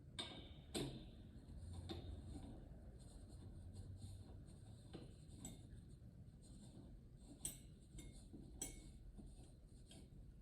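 Faint scattered clicks and light metallic taps from a microphone shock mount being handled and screwed onto the threaded end of a boom-arm stand, a few with a brief ring.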